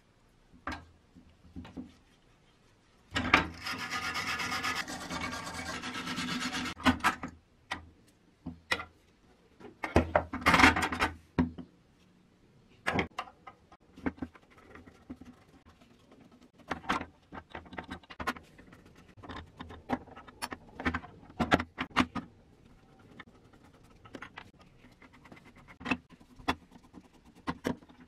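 Hand-tool work on an old metal Triumph balance scale being taken apart: two stretches of scraping and rubbing, the first and longer a few seconds in and a shorter one about ten seconds in. After that come many sharp clicks and knocks of metal parts and tools being handled and set down on a wooden bench.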